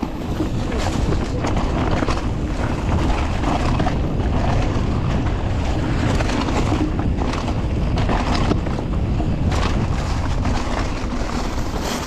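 Wind buffeting the microphone of a camera riding on a fast-moving mountain bike, with steady rattling and knocks from the bike and tyres over rough ground.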